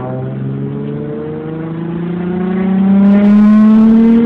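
Lexus IS 250's 2.5-litre V6 pulling under acceleration through its exhaust, straight-piped in place of the resonator with an F Sport intake and exhaust. The note climbs slowly in pitch and grows louder toward the end.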